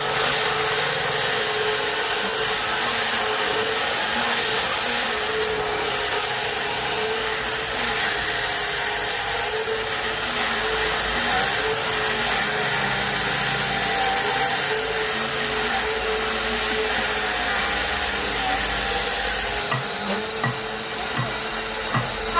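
Sawmill saw cutting through a tree root: a steady, loud sawing noise with a held tone, changing in character about three seconds before the end.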